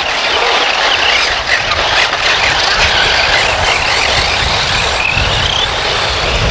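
Electric radio-controlled off-road buggies racing on a loose dirt track: several high electric-motor whines rising and falling as the cars speed up and slow down, over a steady hiss of tyres and grit.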